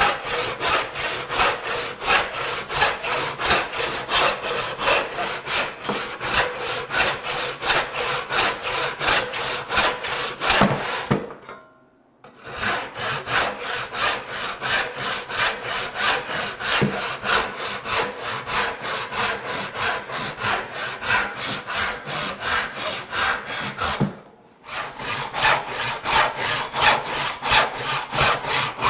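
Backsaw crosscutting a radiata pine board by hand, a quick, even rhythm of saw strokes that stops briefly twice.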